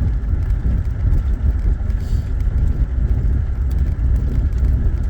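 Steady low rumble of road and engine noise from a car in motion.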